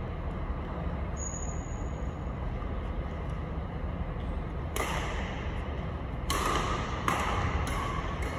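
Badminton rackets striking a shuttlecock, about five sharp hits spread over the second half, over a steady low hum of the hall. A brief high squeak about a second in.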